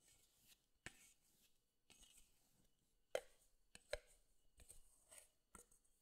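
Quiet scraping of a plastic bowl scraper working bread dough loose from a stainless steel mixing bowl, with several sharp knocks of scraper against the metal bowl, the loudest two just after three seconds in and just before four.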